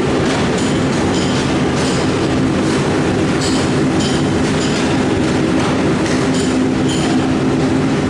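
Machinery of a rotary furnace for lead smelting running: a loud steady drone with a constant low hum, broken by irregular metallic clicks about once or twice a second.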